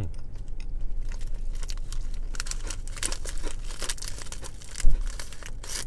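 A crinkly plastic snack wrapper being torn open by hand, crackling and crinkling in quick sharp bursts. There is one low thump a little before the end.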